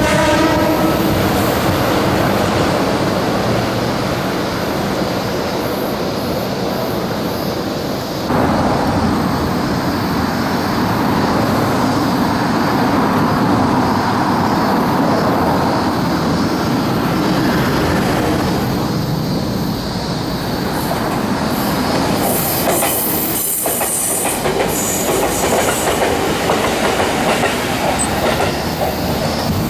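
Electric train running along the track, its noise changing abruptly about eight seconds in, with a brief high squeal of the wheels about three quarters of the way through.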